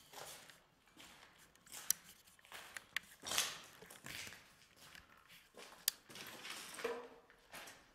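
Footsteps on a floor littered with plaster debris and grit: irregular scuffs and scrapes, with a few sharp clicks of small bits underfoot.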